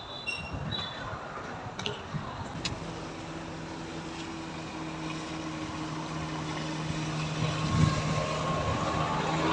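Road traffic noise with a few sharp clicks early on. About three seconds in, a steady low hum sets in and grows louder toward the end.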